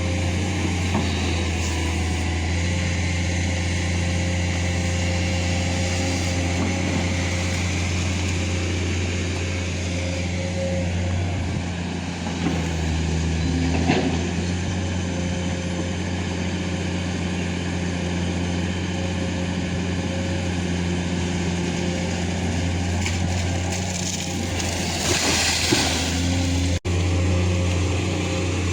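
Diesel engine of an earthmoving machine (excavator or backhoe) running steadily at a constant speed during digging work. One sharp knock comes about halfway through, and a short burst of hiss comes near the end.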